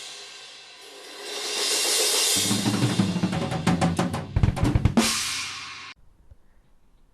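Drum kit with Soultone cymbals played: a cymbal wash fades, swells up again, then a run of rapid drum hits under ringing cymbals. The playing cuts off abruptly about six seconds in, leaving faint room tone.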